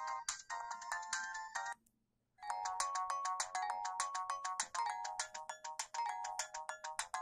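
Siemens CF62 mobile phone ringtones: one melody stops a little under two seconds in, and after a brief silence a new melody of quick repeated notes begins.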